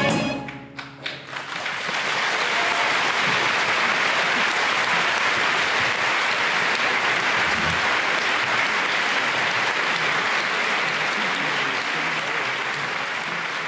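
Theatre audience applauding: a few scattered claps in the first second or so, then dense, steady applause that eases off slightly near the end.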